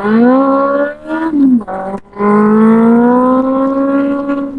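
Benelli 600i's inline-four engine accelerating hard. The revs shoot up at the start and drop back twice in the first two seconds, as at quick gear changes, then climb steadily.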